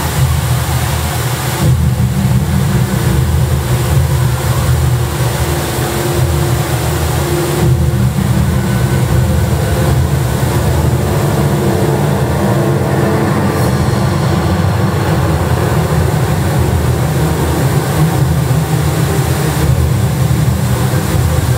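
Steady, loud low rush of the Rain Vortex, a very tall indoor waterfall dropping in a ring of falling water into the pool below.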